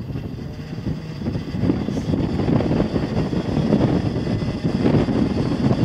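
Antonov An-2 biplane's nine-cylinder Shvetsov ASh-62 radial engine running with the propeller turning, growing louder about a second and a half in.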